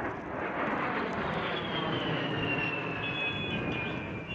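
A-10 Thunderbolt II jet passing overhead: a steady rush of engine noise with the high whine of its twin TF34 turbofans falling steadily in pitch as it goes by.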